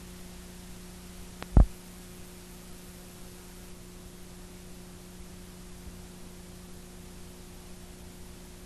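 Steady electrical hum with a background hiss, broken by a sharp loud pop about a second and a half in and another right at the end.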